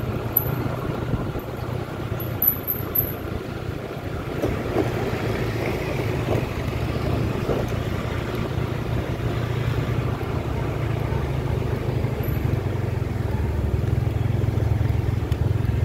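Motor scooter's engine running steadily under way, a low drone with road and wind noise over it, growing slightly louder near the end.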